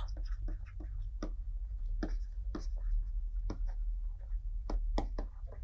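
Pen tapping and scratching on a tablet writing surface while handwriting: a scattering of light, irregular ticks over a steady low hum.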